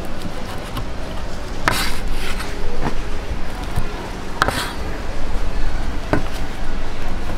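Knife chopping cooked pork on a cutting board: about five separate chops at uneven intervals, two of them much louder than the rest.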